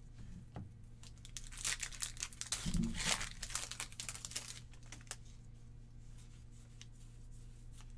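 Foil Pokémon card booster pack wrapper crinkling and tearing as it is opened, a dense run of crackly rustling from about a second and a half to four and a half seconds in. After that, only a few light ticks of cards being handled.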